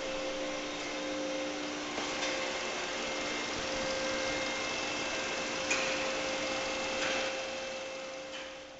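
Steady machine running noise with a few steady hums, fading out near the end.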